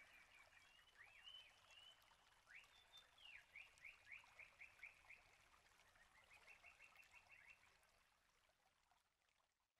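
Faint birdsong: small birds chirping, with runs of quick downward-sweeping notes, fading out near the end.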